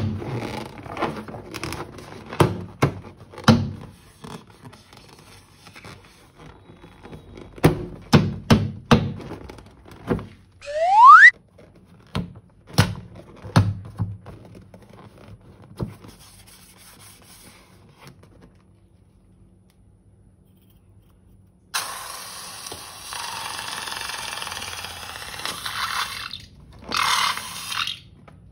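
Slime-making with balloons and piping bags: a run of taps, clicks and scrapes, then one loud squeal rising in pitch about eleven seconds in, and a few seconds of steady hissing near the end.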